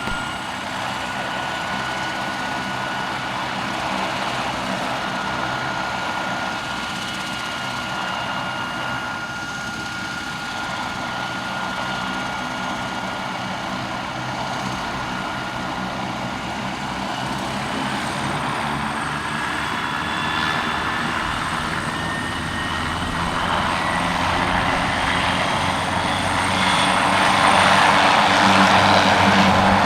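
Leonardo AW139 twin-turbine helicopter running on the ground during start-up: a steady turbine whine over a low rotor beat. About two-thirds of the way through, the whine starts rising in pitch and the sound grows louder toward the end as the engines spool up.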